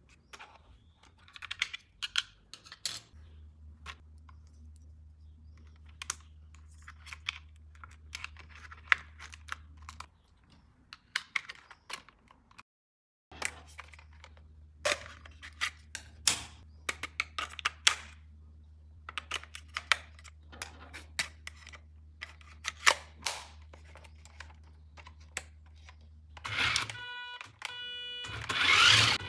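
Irregular plastic clicks and taps of hands handling small toy parts and packaging, over a faint steady low hum. Near the end comes a short buzzing electronic tone.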